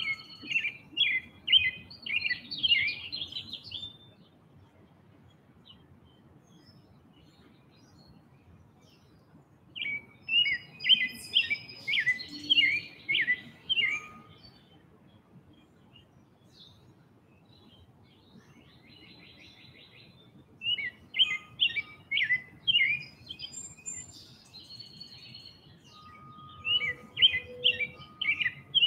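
A songbird singing in four bouts of quick, repeated chirps, each bout lasting a few seconds, with pauses of several seconds between them.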